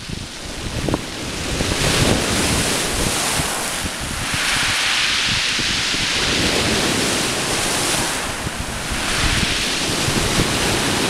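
Rough sea surf on a shingle beach, with wind buffeting the microphone as a low rumble. A wave washes over the pebbles with a loud hiss from about four seconds in until about nine seconds.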